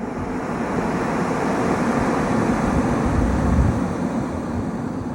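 Ocean surf: a wave's rushing noise builds, peaks about three and a half seconds in, and then eases off.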